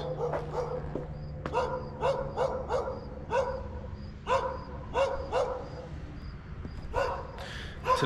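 A dog barking in short, repeated barks, about one or two a second, over a low steady hum.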